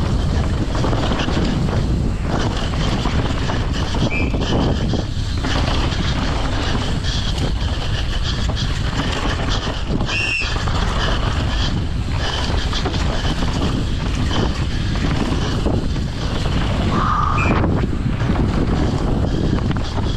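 Downhill mountain bike ridden fast down a trail: wind rushes over the microphone along with a continuous rumble, and three short high squeaks cut through.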